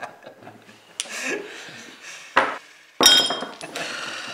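Glass knocking and clinking on a hard surface: a sharp knock about two and a half seconds in, then a loud clink at about three seconds that rings briefly.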